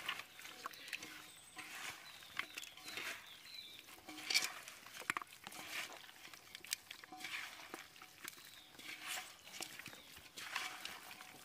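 Hands squeezing and kneading raw chicken pieces in wet spice paste in a metal pot: irregular wet squelching with small clicks and knocks of meat against the pot.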